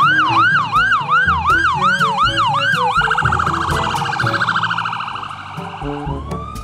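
Ambulance siren sweeping up and down about twice a second (a yelp), then switching about three seconds in to a much faster warble that slowly drops in pitch.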